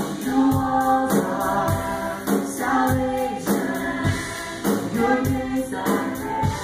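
Live gospel worship music: a choir singing with instrumental accompaniment, heard in the church.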